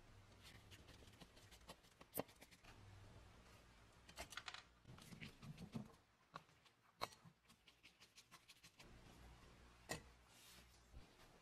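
Faint, irregular clicks and scrapes of a screwdriver working rusty screws and small steel parts on a vintage tape gun's frame, with a few sharper metal clicks as pieces shift.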